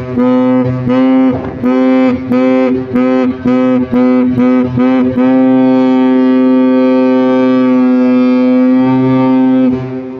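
Ship's horn on a river cruise ship sounding a rapid series of short blasts, about two a second, then one long steady blast of about five seconds that cuts off near the end, its echo dying away.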